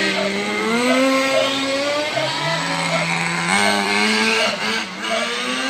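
Small gasoline engine of a radio-controlled monster truck running at speed. Its pitch dips about two seconds in, then climbs in steps as the throttle opens again.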